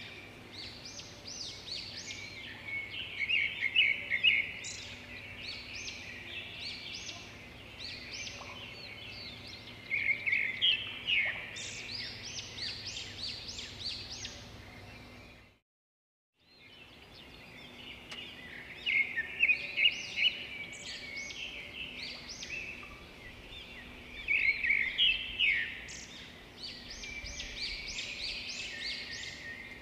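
Small birds chirping and twittering in clusters of quick high notes over a faint steady hiss. The sound fades out to silence for about a second halfway through, then fades back in.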